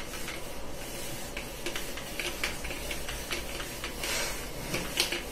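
Whiteboard duster being wiped across a whiteboard: a run of short scuffing rubbing strokes with small knocks, swelling louder about four seconds in.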